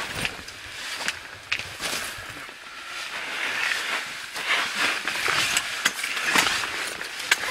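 Rustling of camouflage tent fabric and gear being handled inside a pop-up hunting blind, with scattered clicks and knocks. The rustling grows fuller about halfway through.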